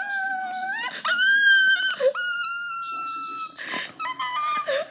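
A person's high-pitched, mock crying wails performed for a shark hand puppet: several long, held wails, with a short gasping sob near the end.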